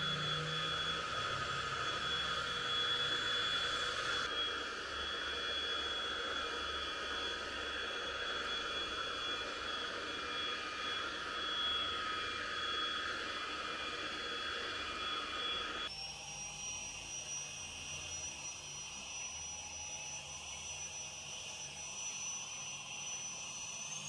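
Handheld UV bed vacuum cleaner running as it is moved over a bed sheet and pillow: a steady motor whine with a rushing hiss. About two-thirds of the way through the sound switches abruptly to a higher, quieter whine.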